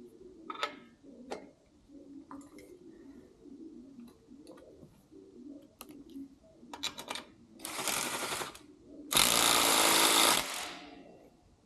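A few light tool clicks and knocks, then two short bursts of a rapid-hammering power tool. The second burst, about a second long near the end, is the loudest.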